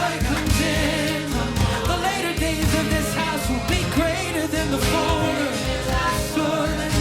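Live worship band music with a singer's wavering melodic line over a steady beat.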